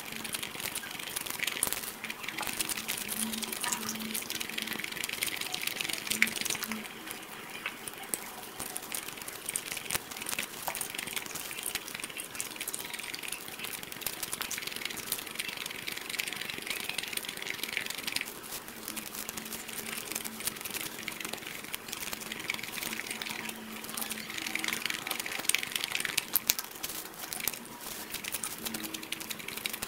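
Close-miked eating sounds: crackling and crinkling as cooked snake skin and meat are peeled apart by hand, with chewing and wet mouth sounds.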